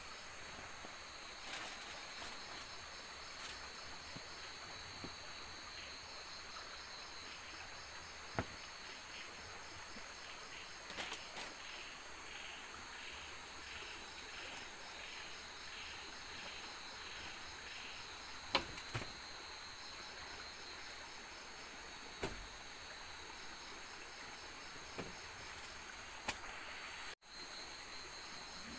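Night insects trilling steadily at a high pitch, with a run of evenly pulsed chirps in the middle. A few short sharp clicks and knocks of things being handled stand out over it, the loudest about halfway through.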